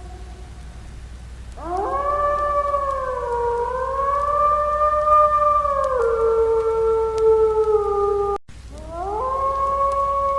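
Wolf howling: a long howl that swoops up and is held with a slight waver, stepping down to a lower note partway through. After a brief break a second howl swoops up and is held.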